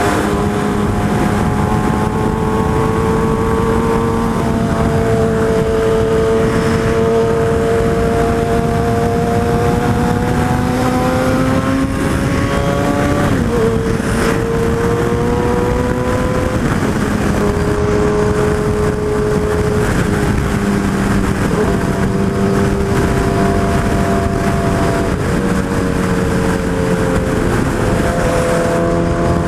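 Suzuki Hayabusa sport bike's four-cylinder engine running at freeway speed under a steady rush of wind noise. Its note climbs slowly, drops sharply about thirteen seconds in, then dips again several times as the throttle changes.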